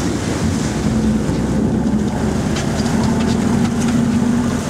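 Sportfishing boat's engines running steadily, with water churning at the stern.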